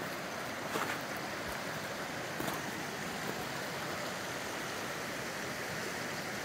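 A river rushing steadily over a rocky bed, with a few faint clicks about one and two and a half seconds in.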